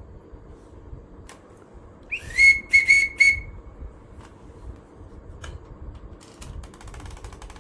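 A short burst of high whistled chirps: a quick rising note, then three or four chirps on the same pitch. A few faint clicks and some light ticking come later.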